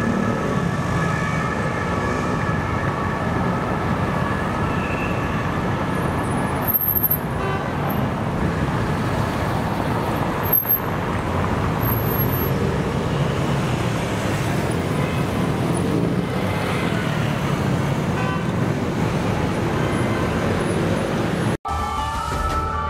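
Traffic noise from a police-escorted motorcade going by: car and motorcycle engines and tyre noise, steady throughout. Near the end, after a brief drop-out, a rising and falling siren wail starts.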